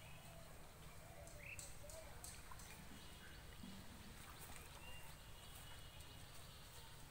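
Near silence: quiet outdoor ambience with a steady low rumble and a few faint bird chirps.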